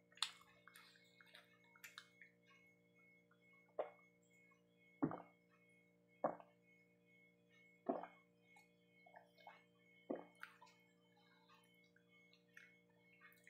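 Swallowing water from a glass in separate gulps, about five of them a second or two apart, with small mouth clicks before them, over a low steady hum.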